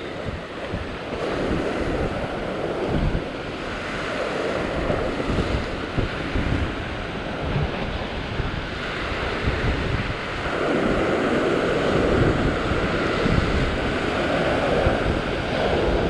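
Ocean surf breaking and washing over a rock ledge, surging and easing from swell to swell, with wind buffeting the microphone.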